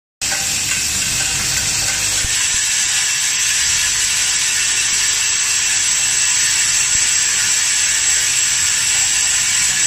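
Automatic plastic screw-anchor assembly machine running: a steady, even mechanical rattle and hiss from its vibratory bowl feeders shaking plastic anchors and nails and its rotary assembly table turning.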